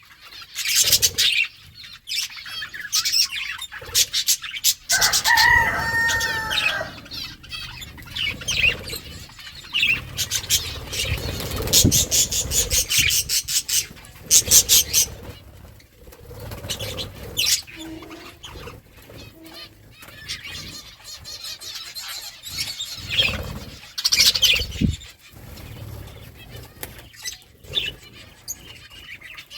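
Pet budgerigars chirping and feeding: irregular bursts of sharp clicks, with a dense rapid run in the middle, and a few warbling calls about five seconds in.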